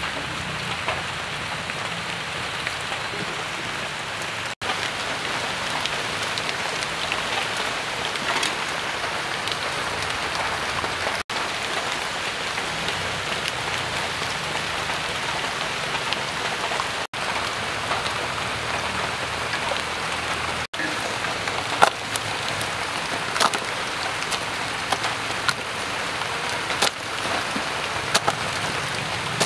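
Steady hiss of falling rain, cutting out for an instant four times. In the second half a few light clicks and taps sound as giant water bugs are handled and dropped into a plastic basin.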